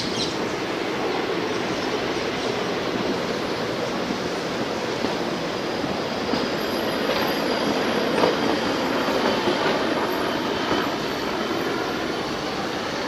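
Steady roar of military jet aircraft flying over, swelling slightly about two-thirds of the way through.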